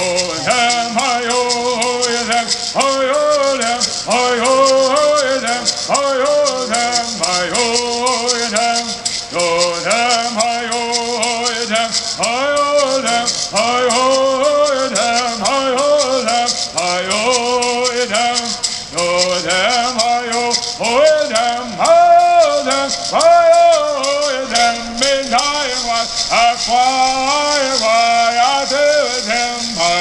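Kumeyaay bird singers singing a bird song together, men's voices over steady shaking of gourd rattles.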